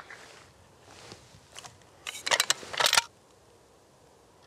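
A quick run of sharp clicks and rustles lasting about a second, starting about two seconds in, then near silence.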